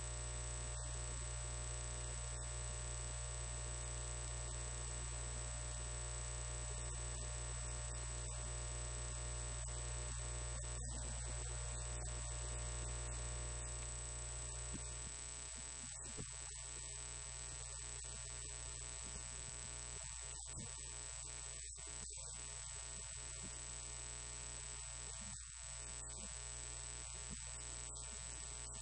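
Steady electrical hum with a constant high-pitched whine over it; no voice is heard.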